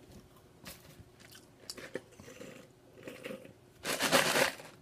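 Close-up biting and chewing of a crispy fried spicy chicken sandwich, with soft crunches scattered throughout and a louder burst about four seconds in.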